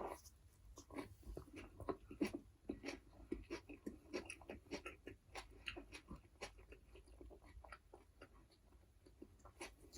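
Close-miked chewing of fast food: a steady run of soft, wet mouth sounds and sharp little clicks, busiest in the first half and thinning toward the end.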